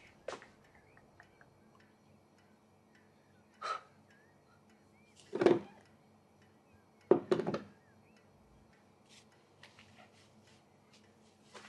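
A few scattered thuds and knocks in a quiet room: one about halfway through is the loudest, and a double knock follows soon after.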